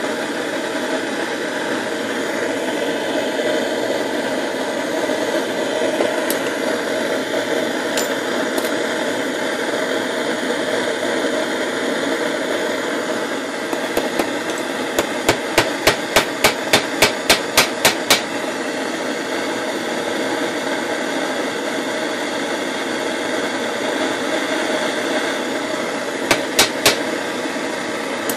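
Steady hiss of a propane torch flame, with a hammer striking a heated steel nail against a bench vise: a quick run of about ten blows, roughly three a second, near the middle, then three more near the end.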